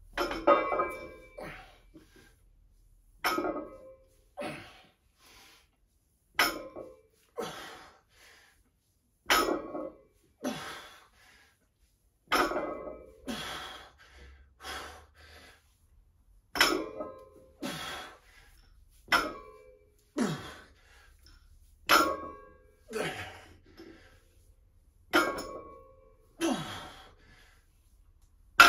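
Sumo deadlift set with a barbell loaded to 140 kg: about every three seconds the plates touch down on the gym floor with a thud and a brief metallic ring, followed about a second later by a softer sound of effort, ten reps in all. Heavy breathing from the lifter runs between the reps.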